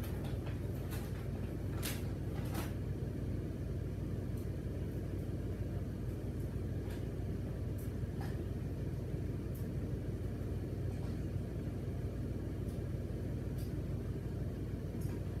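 Steady low electrical hum of room machinery, with a few faint scattered clicks.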